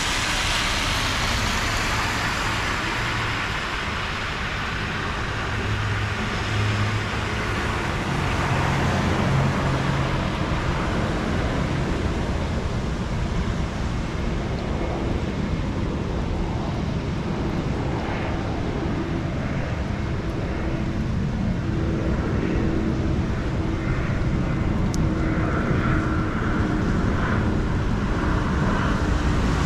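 Car tyres hissing through water on a rain-soaked road as a car passes at the start, fading within a few seconds into a steady low traffic rumble. The tyre hiss rises again near the end as another car approaches.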